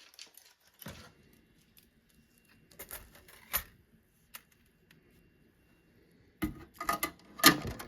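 A bicycle chain being handled, its metal links clinking and rattling in scattered clicks, with a louder flurry of clatter near the end.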